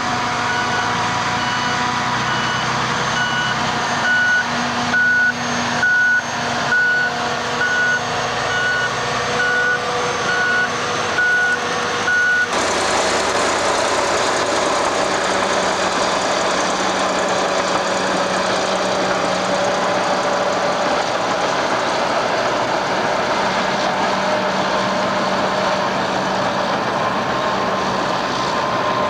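A reversing alarm beeping over and over above the running diesel engine of heavy earthmoving plant, with a few clunks. About twelve seconds in, the sound cuts to a steady drone of diesel engines from the excavator and lorries at work, with no beeping.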